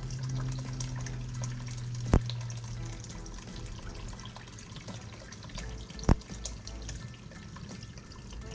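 Coconut water poured from a can into a pot of broth, a liquid pouring and splashing, with two sharp knocks, about two and six seconds in.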